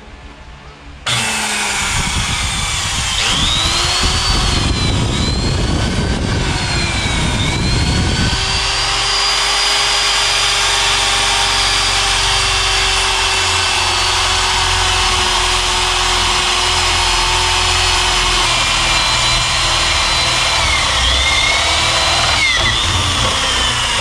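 Corded electric drill with a spade bit boring into the wooden edge of a door for a deadlock's bolt hole. The motor starts about a second in and runs steadily, its whine sagging and recovering several times as the bit bites, with a rough chattering of the cutting wood through the first several seconds.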